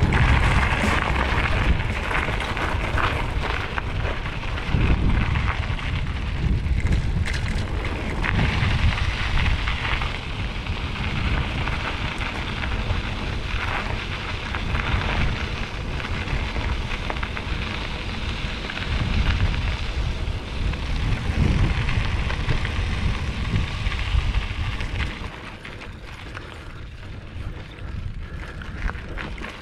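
Mountain bike riding on a dirt trail: wind rumbling on the microphone and tyres crackling over loose dirt and gravel. It gets quieter about 25 seconds in.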